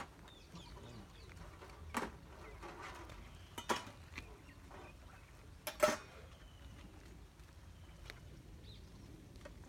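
Kittens scrambling on the straps and frame of a woven cot: a few short sharp knocks, the loudest about six seconds in, over a faint outdoor background with faint bird chirps.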